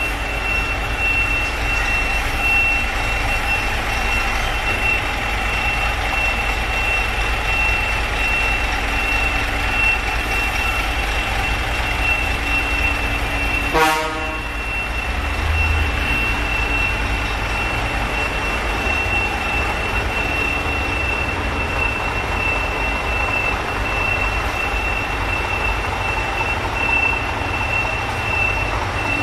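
Heavy truck engine idling steadily, with a thin, steady high tone running over it and one sharp click about halfway through.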